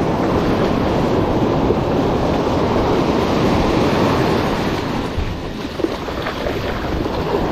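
Ocean surf washing up a sandy beach: a steady rush of breaking waves and foam, with wind on the microphone, easing slightly for a moment near the end.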